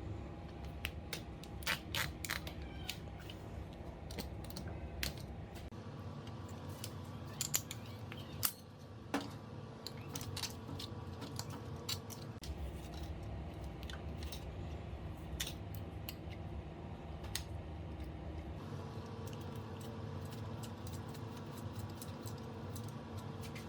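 Irregular small clicks and ticks, like small hard parts being handled, over a steady low hum.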